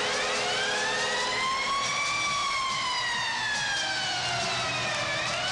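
Arena goal siren wailing, its pitch rising for about two seconds, falling slowly for about three, then rising again near the end, over a cheering, clapping hockey crowd.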